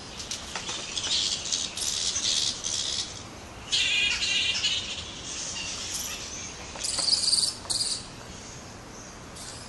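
A roosting colony of grey-headed flying-foxes calling: harsh, high-pitched screeches in bursts, loudest about four seconds in and again about seven seconds in.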